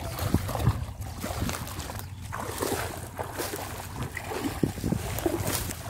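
Feet wading through shallow river water, sloshing and splashing irregularly with each step.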